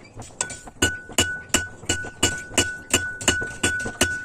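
Hand hammer forging a red-hot steel knife blade on a railway-rail anvil: about three sharp blows a second, starting a moment in, with a clear metallic ring that carries on between blows.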